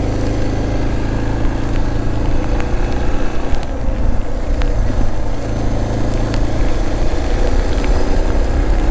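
Suzuki DR650's single-cylinder engine running steadily while riding, under wind and road noise on a wet road, with a few light ticks.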